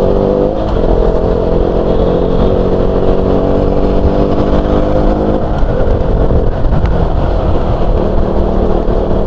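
Motorcycle engine running at a steady speed while riding, with wind and road rumble on the microphone. The engine's even tone holds steady for about the first five seconds, then fades into the rumble.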